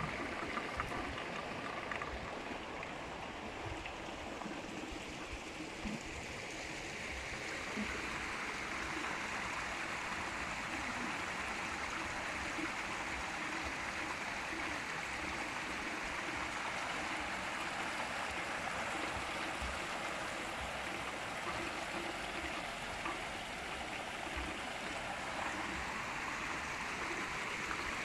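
Water pouring steadily from an inlet pipe into a concrete trout-farm pond, a continuous splashing rush.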